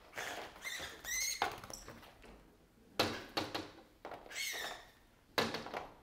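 A long-handled net rubs and knocks against a high window's glass and frame as a fledgling northern cardinal is scooped off the pane. There are repeated short scraping and rustling bursts, the loudest about three seconds in and again near the end, with short high squeaks between them.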